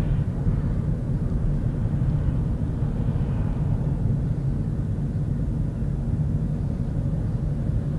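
Steady low rumble of a car cabin while driving: engine and road noise with no change in pitch.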